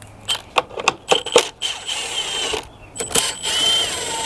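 A few sharp metallic tool clicks, then a cordless impact driver's motor spinning in two runs, the second dropping in pitch and running on lower, as fasteners are backed out of the motorcycle's fender.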